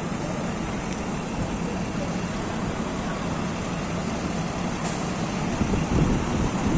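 City street traffic noise: a steady rumble of vehicles and street din, swelling a little louder near the end.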